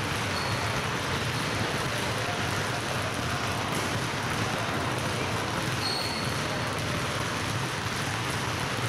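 Many basketballs dribbled at once on a wooden gym floor, their bounces overlapping into a dense, steady patter that echoes in the hall.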